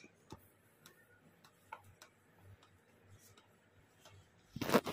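Faint scattered clicks and taps from hands handling a tablet, stylus and folio cover, then a brief louder handling noise near the end.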